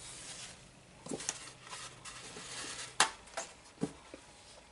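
Paper towel rustling and dabbing against a non-stick craft mat as wet ink is blotted, with a few light knocks and one sharp click about three seconds in.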